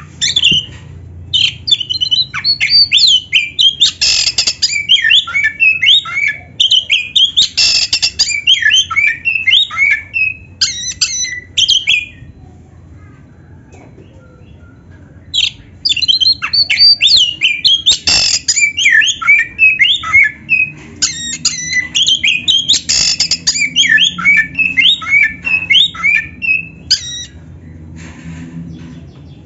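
Oriental magpie-robin (kacer) in full song: long runs of rapid, varied whistled and rasping notes, broken by a pause of about three seconds near the middle.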